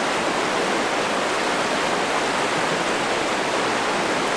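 River water rushing steadily over a shallow rocky riffle.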